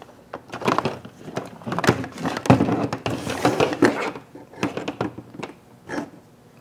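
Objects being handled and knocked about: a string of clicks and clunks, with a stretch of scraping and rustling about three seconds in.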